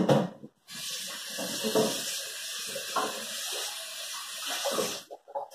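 Kitchen sink tap running, water splashing into the sink as something is rinsed under it. A brief clatter comes at the start; the water comes on about a second in and is shut off abruptly near the end.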